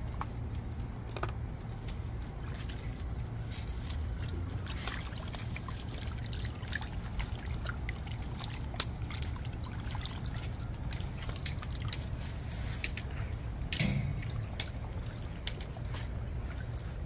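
Water pouring and trickling as raw chicken back is washed, with scattered small clicks and knocks of handling over a steady low rumble.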